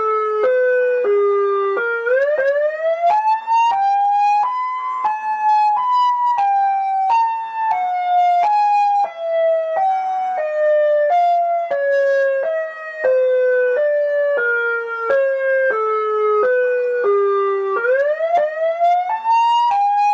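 Emergency Alert System (EAS) alarm tone: one loud pitched tone that swoops upward, then steps slowly back down in a long run of short held notes, and swoops up again near the end.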